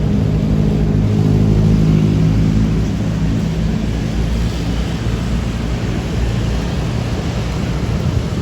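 Diesel engines of road-paving machinery running steadily, swelling a little one to three seconds in.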